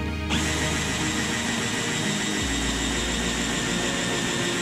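Cordless drill running a step drill bit through the plastic keel of a canoe, a steady whine with a brief stop and restart just after it begins. The step bit is a bit dull.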